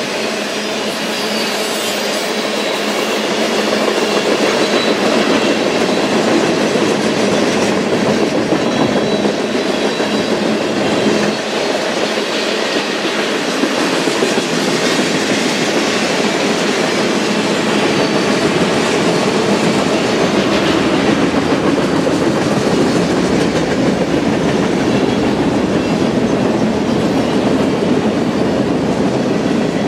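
Freight train passing on the rails, its wheels rolling over the track in a steady, continuous noise that grows a little louder after a few seconds.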